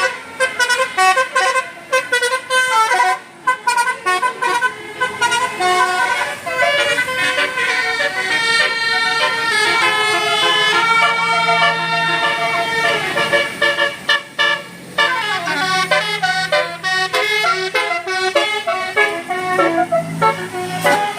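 Bus telolet horns, Basuri musical horns, playing fast melodic tunes: many short pitched notes stepping up and down one after another, with a few sliding notes about two-thirds of the way in.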